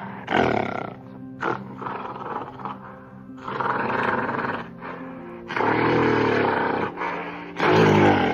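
Gorilla calling in a run of loud, rough calls of varying length, the longer ones over a second, over background music; the loudest call comes near the end.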